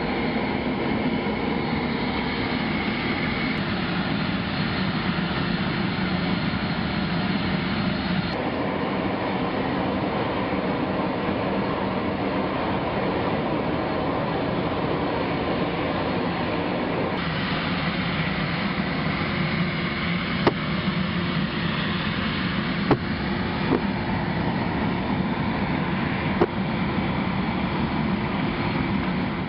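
Steady, loud machinery noise that changes character abruptly twice, with a few sharp clicks near the end.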